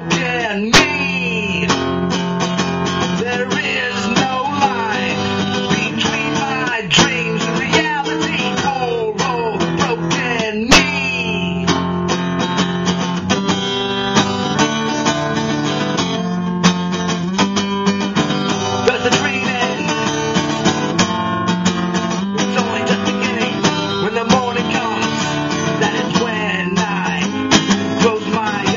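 Acoustic guitar strummed steadily, played live in a folk-rock song.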